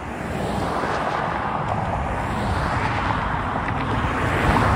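Road traffic passing on a highway: car tyre and engine noise swelling as vehicles approach and grows loudest near the end.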